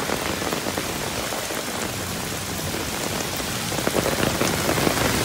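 Heavy rain falling steadily, a dense even hiss with no letup.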